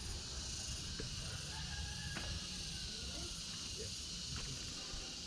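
Outdoor ambience: a steady high-pitched insect hiss over a low rumble, with a few faint clicks and short chirps.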